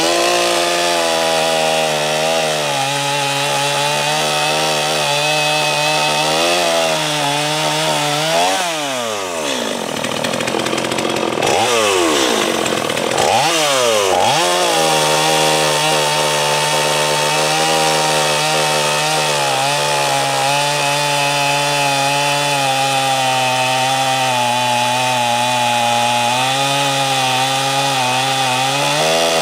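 Holzfforma G255 45cc two-stroke chainsaw, a Stihl MS250 clone with a freshly tuned high-speed needle, running near full throttle as it cuts slices off a hard, dried-out walnut log. About eight seconds in the revs fall away, then rise and fall twice. From about fourteen seconds it runs at steady high revs in the cut again.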